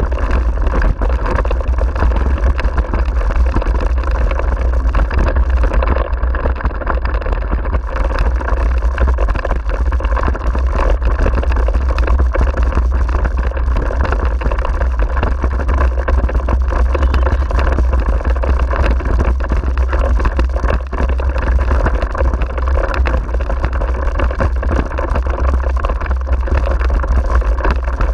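Continuous wind buffeting and rattle on a camera fixed to the handlebars of a wheeled dog rig rolling fast along a gravel forest track, with a constant low rumble and fine irregular rattling from the wheels and frame.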